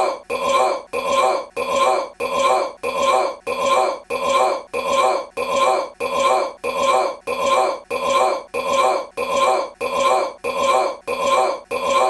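A man's short belch, the same one repeated over and over in a tight loop, evenly spaced a little under a second apart.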